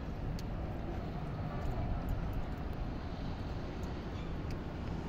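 Steady low outdoor rumble of a snowy street, with a few faint clicks.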